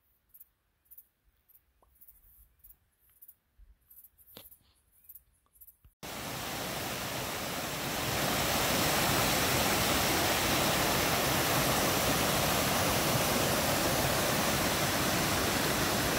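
After a few quiet seconds with faint, scattered high ticks, the steady rush of a small waterfall spilling over a mossy stone weir starts abruptly about six seconds in and stays loud.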